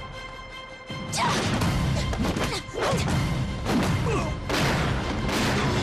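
Action-drama fight soundtrack: dramatic music with a series of hits and crashes. It is quieter for the first second, then swells and stays loud with repeated impacts.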